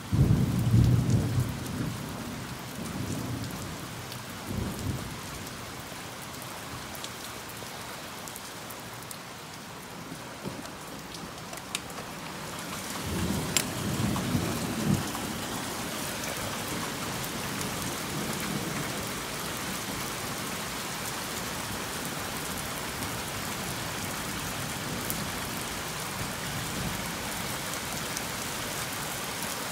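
Thunder rumbling over steady rain. The loudest rumble comes right at the start, shorter ones follow, another long rumble comes about halfway through, and the rain hiss grows heavier after it.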